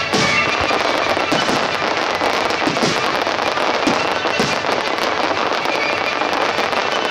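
Aerial firework shells bursting one after another in a dense barrage, with continuous crackling throughout and several deeper booms.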